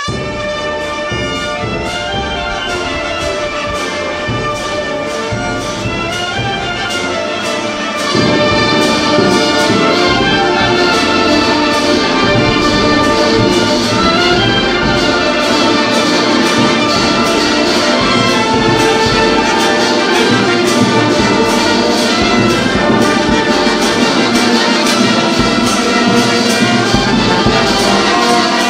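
Marching brass band playing: saxophones, trumpets, French horns and sousaphones over a steady drum beat, getting louder about eight seconds in.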